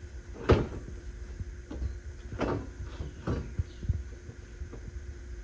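Tubular metal aftermarket front bumper knocking and clunking against the UTV's frame as it is worked into the mounting holes: five or six separate knocks, the loudest about half a second in.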